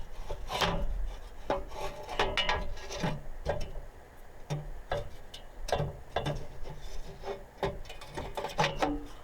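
Irregular metal knocks and scraping as an exhaust header is handled and fitted onto the block studs in a truck's engine bay, with a dozen or so separate clanks.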